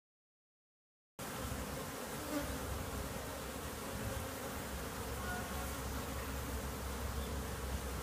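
Silent for about a second, then a steady hum of many honeybees, workers and drones, flying around a hive entrance. The bees are out on cleansing flights after days of rain.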